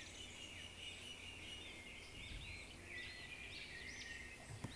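Faint birds chirping in a steady run of short, quick high chirps.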